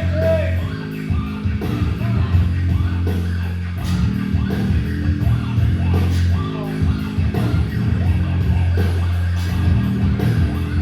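Loud rock music with a steady drum beat and a heavy, sustained bass line.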